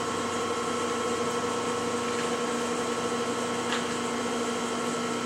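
Steady mechanical hum of running shop machinery, with a few constant tones, and a single faint click about three and a half seconds in.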